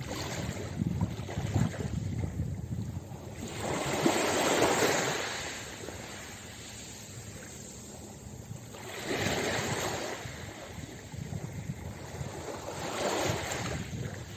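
Small waves washing in over a pebble beach, the wash swelling three times, about every four to five seconds.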